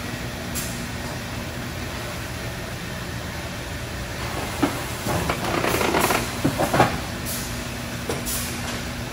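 Steady hum of running industrial machinery on a plastic sheet line. From about halfway through, a couple of seconds of hissing comes in with a few sharp knocks.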